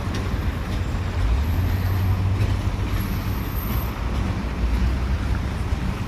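ЭД4М electric multiple unit train running with a steady low rumble.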